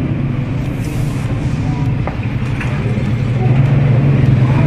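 A motor vehicle engine idling nearby, a steady low hum that swells slightly about three and a half seconds in. Faint clicks of wire being handled sound about two seconds in.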